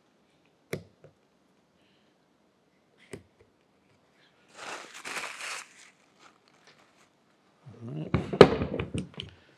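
Metal parts and tools handled on a steel workbench while a snap ring is taken off a hand-cranked boat-trailer winch: a couple of sharp clicks, a brief scraping rustle, then a louder clatter of knocks near the end.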